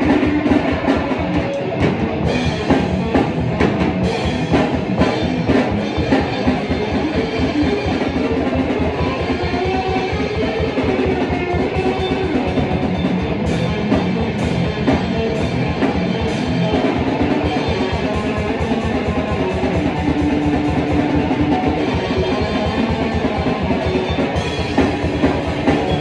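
Rock band playing metal: electric guitar over a drum kit, with busy drumming throughout.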